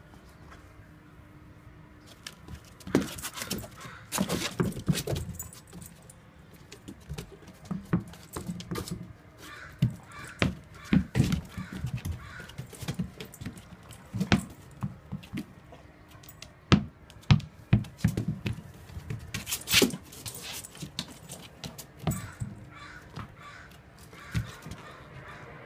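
A dog moving about on a concrete and wooden porch after a tennis ball: irregular sharp clicks and knocks of claws, collar tags and the ball, coming in clusters.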